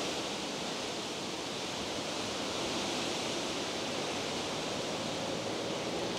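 Steady wind noise rushing across the microphone and through the trees, with the faint hum of an approaching Rover 75 Tourer diesel coming in near the end.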